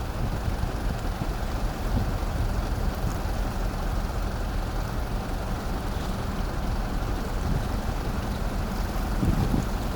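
Steady low rumble of the car ferry Hayabusa under way, mixed with wind and water noise.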